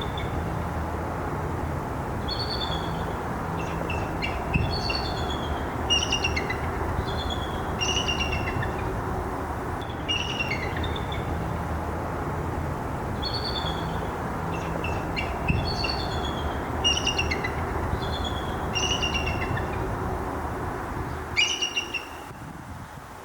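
Bald eagles calling: repeated strings of short, high, falling notes in several bouts, over a steady low rumble.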